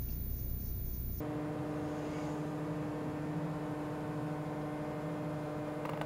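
A low steady hum that changes abruptly about a second in to a drone of several held tones.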